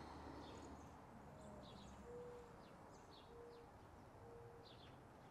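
Faint birdsong: scattered quick high chirps, with three short steady low hooting notes in the middle, over a faint low hum.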